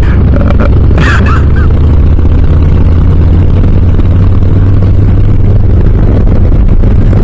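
Harley-Davidson Low Rider S V-twin engine running at a steady, even pitch through Cobra RPT slip-on mufflers, a loud, deep exhaust drone.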